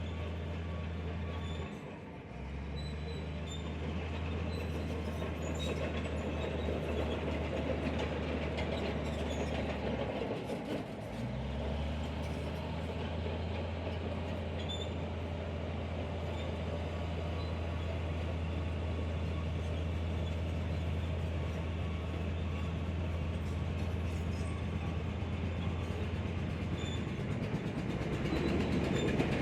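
Heavy diesel earthmoving machinery running steadily, with a low engine hum that drops out briefly twice, about two seconds in and again around ten seconds, over a continuous clattering noise.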